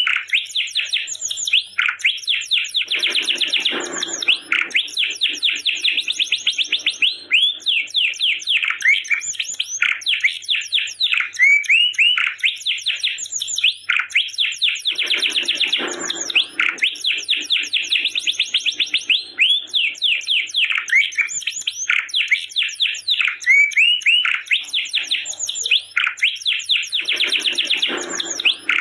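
Domestic canary singing a long, unbroken song of rapid trills and fast repeated high chirps, with a lower, rougher rolling passage that comes back three times.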